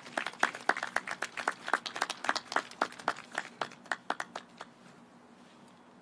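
A few people clapping their hands, sharp separate claps at a quick uneven pace that stop about four and a half seconds in.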